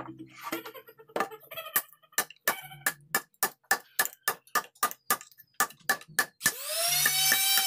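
Hammer striking a teak board, knocking out the strips of waste between saw cuts: a quick run of sharp wooden knocks, about four a second. Music comes in near the end.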